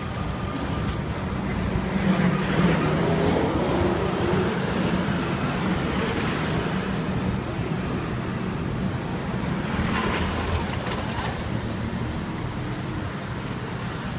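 City street traffic: cars and motorbikes running and passing, a steady background that swells louder about two seconds in and again near ten seconds.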